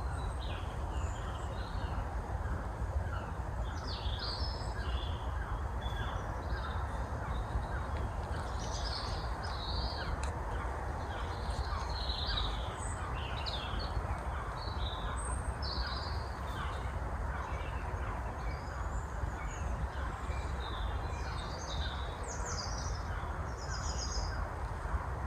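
Woodland birds calling, many short calls scattered throughout, over a steady low rumble.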